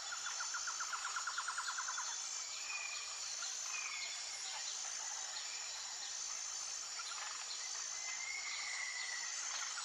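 Outdoor nature ambience: a steady high hiss of insects with a rapid trill during the first two seconds that comes back near the end, and a few short bird-like chirps in between.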